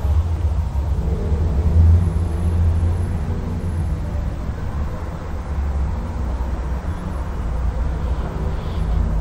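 Steady low rumble of background noise with no speech, its level wavering slightly.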